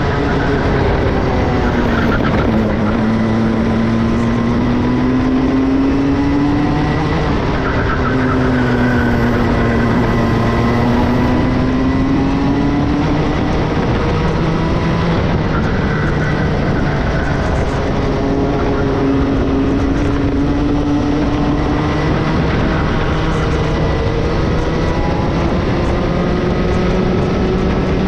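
Two-stroke racing kart engine running hard, its pitch climbing steadily for several seconds at a time and then dropping back, over and over, as it accelerates and slows lap after lap.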